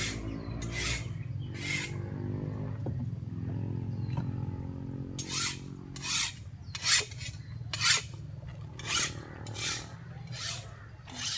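Footsteps on dry leaves and dirt, a short rasping step about once a second, with a break of a few seconds in the first half. A steady low hum runs underneath.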